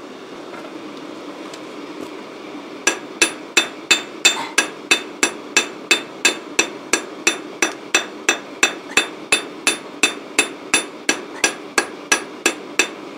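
Ball-pein hammer striking a small piece of cut-off spanner held in tongs on a sledgehammer head used as a makeshift anvil, forging it into a small spoon. The blows start about three seconds in and come steadily at about three a second, each a sharp strike with a short metallic ring.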